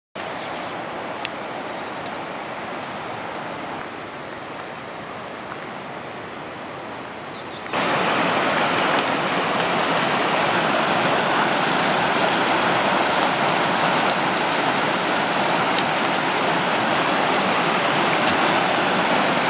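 Steady rush of a mountain stream tumbling over rocks, farther off at first, then close and louder after a sudden jump about eight seconds in.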